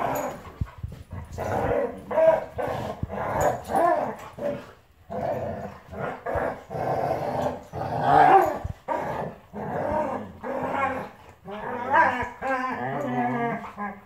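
Two dogs, a Vizsla and a black dog, play-fighting and growling in a run of short bursts, with a higher, wavering growl near the end.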